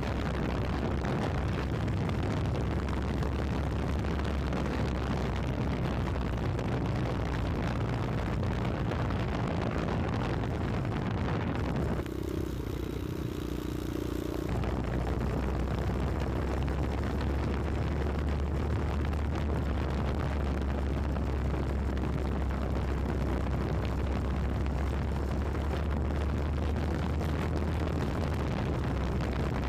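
Wind buffeting the microphone of a moving motorcycle, a steady rushing rumble with the ride underneath. About twelve seconds in it eases for a couple of seconds, leaving a steadier hum, then comes back.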